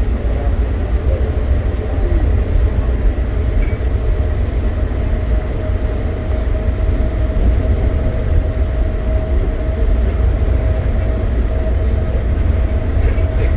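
Denver airport's automated underground train running between stations, heard from inside the car: a steady heavy low rumble with a steady motor whine above it.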